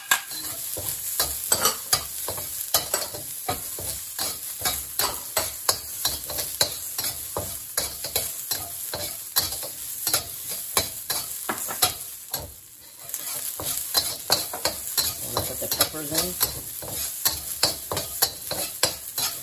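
Metal spatula scraping and clinking against a wok as diced onion, ginger and garlic are stir-fried in hot oil, several strokes a second over a steady sizzle. The stirring stops briefly about two-thirds of the way through, then carries on.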